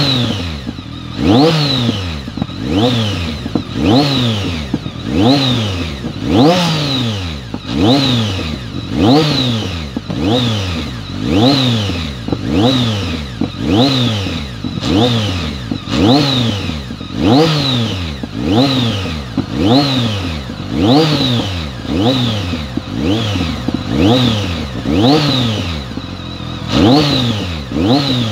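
2006 BMW K1200R's inline-four engine through a Remus aftermarket exhaust, revved in quick throttle blips about once a second. Each blip rises sharply in pitch and falls back toward idle.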